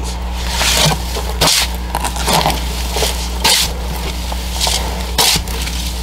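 A small shovel scraping and scooping a gritty vermiculite and mortar mix against the sides of a metal drum, in short strokes about once a second.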